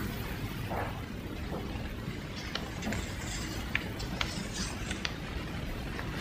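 Background noise of a large hall: a steady low rumble and hiss, with a few small scattered clicks in the middle.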